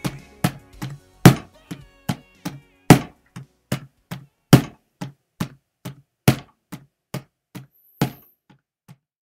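Large floor drum struck in a steady beat, about two and a half strikes a second with every fourth strike louder. The strikes fade out near the end.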